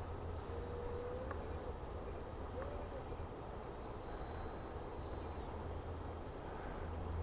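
Two low hoot-like bird calls in the first three seconds over a steady low rumble of wind on the microphone, with the faint high whine of the E-flite Viper's 70 mm electric ducted fan in flight at a distance.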